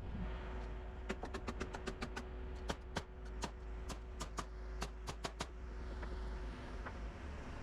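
A fast run of about twenty sharp nailing strikes, roughly four or five a second, driving nails into the framing lumber, stopping about five and a half seconds in. A steady hum and a low rumble run underneath.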